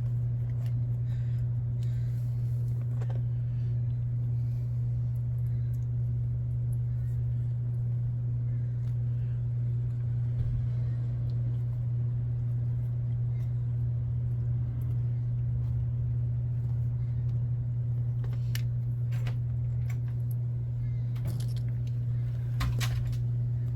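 Steady low background hum, with a few faint light clicks near the end from small screws and wheel parts being handled during RC wheel assembly.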